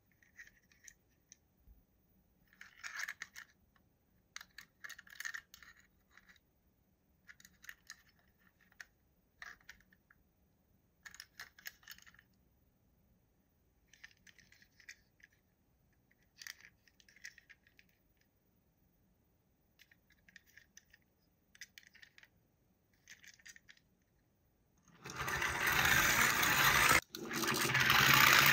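Toy packaging and toys being handled during an unboxing: short, light bursts of clicking and scraping every second or two. About 25 seconds in comes a much louder stretch of rubbing and scraping.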